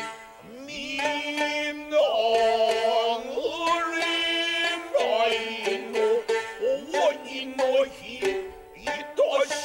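Gidayū jōruri: a narrator chants a long, drawn-out sung line whose pitch slides and bends, over sharp plucked notes of a shamisen.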